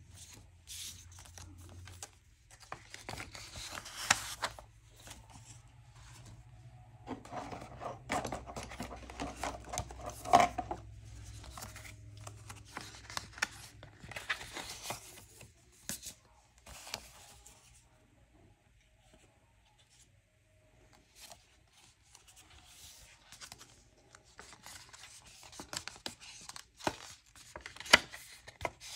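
Paper envelopes and banknotes rustling and sliding as cash is pulled out of the envelopes by hand. It comes in irregular bursts with a few sharp clicks, with a quieter stretch about two-thirds of the way through.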